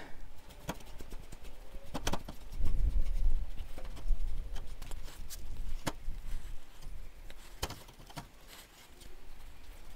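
Rag rubbing over the steel chassis rail as a gloved hand wipes the bare metal clean with mineral turps, with a handful of scattered light clicks and knocks from the hand and cloth working against the metal.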